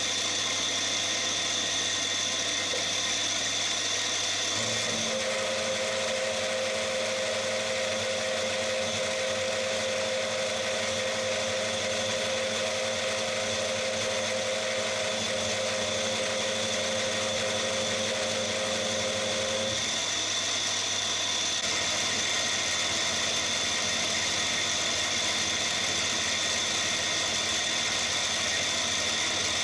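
Cormak ZX 7045 milling machine running steadily, an end mill cutting into an aluminium block. The hum's tones change from about five seconds in to about twenty seconds in, then return to the earlier pitch.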